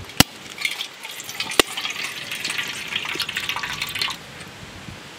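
Fresh coconut being cracked open with a heavy curved knife: two sharp knocks on the shell about a second and a half apart. Coconut water splashes and trickles into a steel bowl, then stops abruptly about four seconds in.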